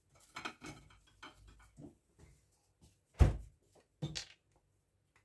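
Kitchen handling noises: small clicks and rustles, then a loud knock about three seconds in and a second, lighter knock about a second later.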